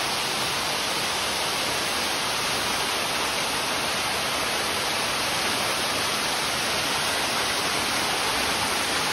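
Waterfall rushing steadily as water sheets down a broad sloping rock face.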